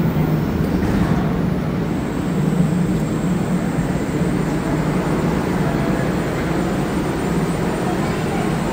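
Steady low hum of an AZUR metro train standing at the platform with its doors open, its onboard equipment running. A faint high whine joins about two seconds in.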